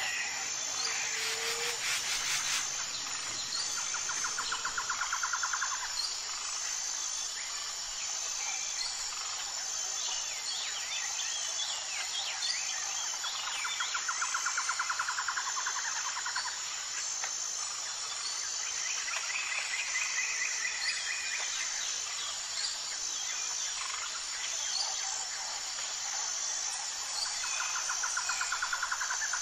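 Birds singing, with several rapid trills about two seconds long recurring and scattered short chirps between them, over a steady high-pitched insect buzz.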